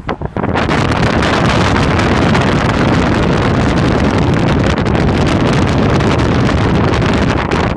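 Wind rushing over a phone's microphone at the open window of a moving car, with the car's road noise under it. It comes up about half a second in and drops away sharply near the end.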